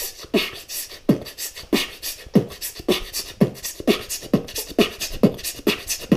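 Beatboxing: a repeating phrase of kick and snare sounds with hissed inward and blown outward breaths, played with the mouth. It speeds up gradually, the kicks coming about every three-quarters of a second at first and about twice a second by the end.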